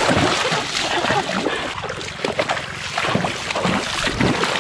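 Sloshing and splashing of someone wading through shallow, muddy fishpond water.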